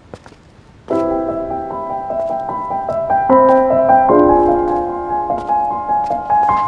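Soft piano background music that comes in about a second in, playing slow, held chords, after a few faint taps.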